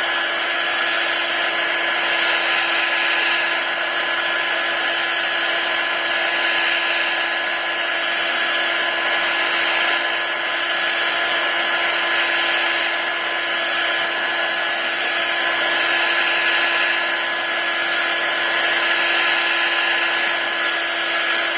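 Heat gun running steadily: a constant rush of blown air with a steady motor whine, softening the adhesive under an iPad's glass.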